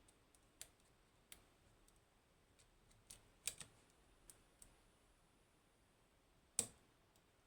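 Faint, irregular clicks of a lock pick and tension tool working the pins inside a Lockman Megacross high-pin-count lock, with a sharper click near the end.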